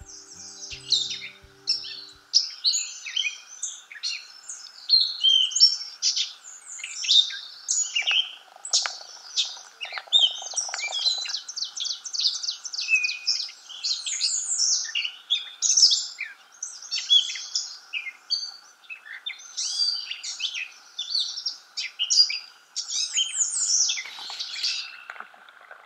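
Dense chorus of many songbirds singing and calling over one another, busy short chirps and phrases, over a steady faint high hiss.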